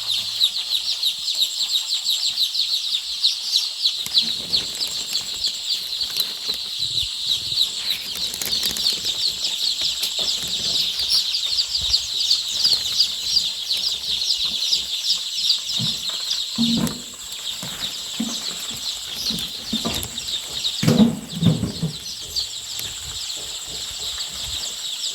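A brooder full of day-old layer chicks peeping continuously, a dense high-pitched chorus of many rapid cheeps, with a few low thuds or rustles in the second half.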